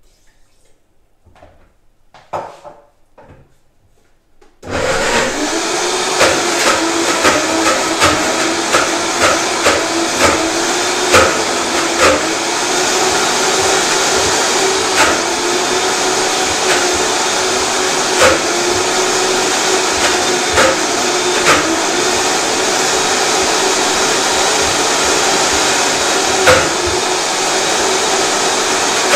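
A high-performance blender switches on about five seconds in and runs loud and steady at one pitch, blending a milk-based chocolate cream, with scattered knocks over the whirr. Before it starts there are only a few faint knocks.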